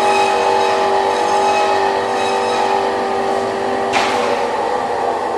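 Electric motor of a workshop power tool running with a steady whine over a hiss, then cutting off with a sharp click about four seconds in.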